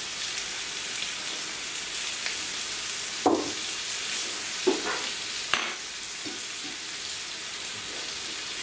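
Steady frying sizzle from a hamburger patty on a grill pan and fries in hot oil, with a few brief knocks near the middle.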